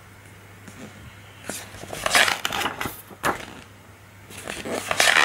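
Pages of a glossy paper brochure being turned, rustling twice: about two seconds in and again near the end.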